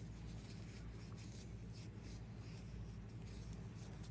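Faint scratchy rubbing and handling noise over a steady low hum.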